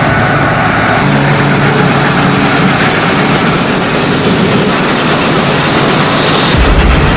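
Laverda AL Quattro Evo combine harvester running, a loud, steady heavy diesel engine sound. The sound changes abruptly about a second in and again near the end.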